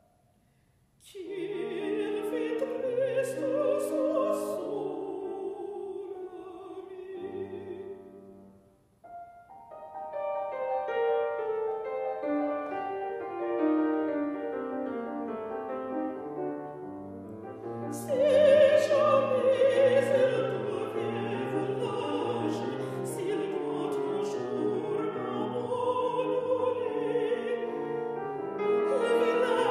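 A woman singing in classical operatic style with vibrato, accompanied by a Steinway grand piano. After a moment of quiet the voice and piano begin together. About nine seconds in the voice drops out for a piano-only passage, and the voice comes back in about halfway through.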